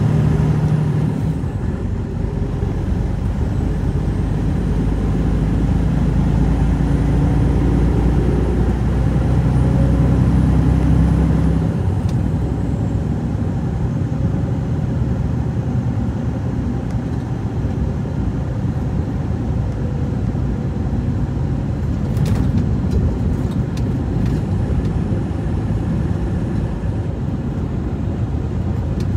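Truck engine running steadily with road noise. Its deep low drone drops away about twelve seconds in, and a few sharp clicks come about twenty-two seconds in.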